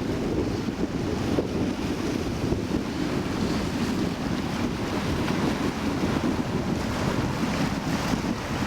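Steady wind buffeting the microphone, with sea waves washing in underneath.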